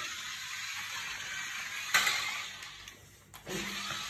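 Battery-powered toy car running across a tile floor: a steady whirring hiss of its motor and wheels, broken by a sharp knock about halfway through, then dropping away briefly before it starts up again.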